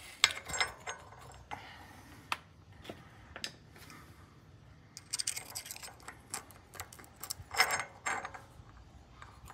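Scattered light metallic clicks and clinks of the slotted locknut and washer inside a Ford automatic 4x4 locking hub being backed off and handled by hand, with a short louder scrape about three-quarters of the way through.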